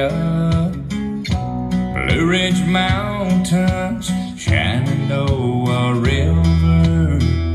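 Guitar-led music with strong bass notes played through a Marshall Emberton II portable Bluetooth speaker during a listening test.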